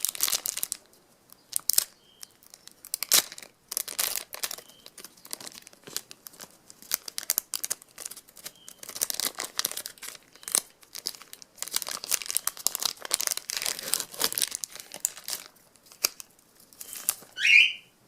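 Football card pack wrapper being torn open and crinkled by hand, in many irregular rustling bursts. A short, high chirp near the end is the loudest sound.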